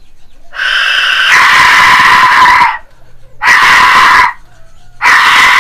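Fired clay Aztec death whistle blown three times, giving a harsh, screaming rush of sound. The first blast, about two seconds long, opens with a brief steadier tone before breaking into the shriek; a shorter blast follows, then a third that runs on past the end.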